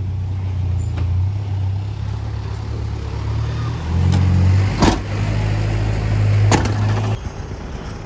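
Vehicle engine idling with a steady low hum, which stops abruptly near the end. A sharp bang comes about five seconds in, and a lighter knock about a second and a half later.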